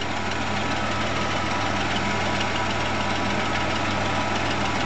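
1990 Chrysler Imperial's V6 engine idling steadily, with the A/C compressor not yet engaged as refrigerant charging begins.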